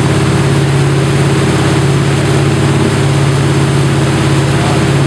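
Wakesurf towboat's inboard engine running steadily under way, a loud, even low drone, over the rushing wash of its wake.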